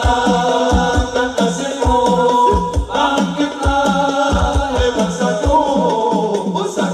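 Hadroh music, a sung vocal line over frame drums with a steady beat of deep bass drum hits, played loud through a PA speaker stack as a sound check of newly fitted drivers.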